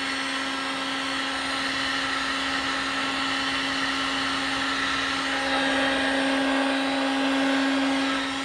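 Electric heat gun running steadily: a constant motor hum under a rushing hiss of blown air as it shrinks heat-shrink tubing over a wire connector. It grows slightly louder after about five seconds.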